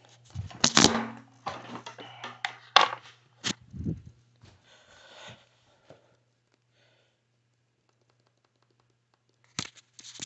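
A run of irregular sharp clicks and knocks over a faint low hum, then almost nothing for a few seconds, with a couple more clicks near the end.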